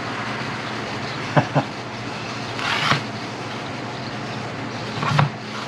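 A few light clicks and a brief rustle from handling parts and oil, over a steady background hum.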